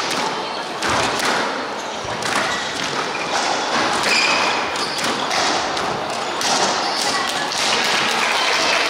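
Squash rally: the rubber ball struck by rackets and thudding against the court walls in a quick, irregular series of knocks, with players' footsteps on the wooden floor, echoing in the court.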